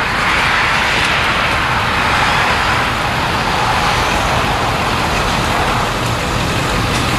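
Sectional steel roll-up garage door being raised, a loud, steady noise without distinct knocks.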